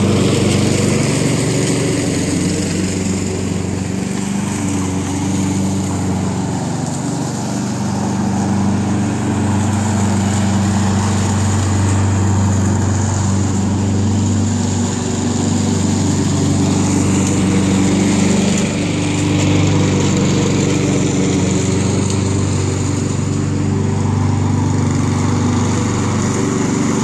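Walk-behind gasoline lawn mower engine running steadily at constant speed while the mower is pushed across the grass.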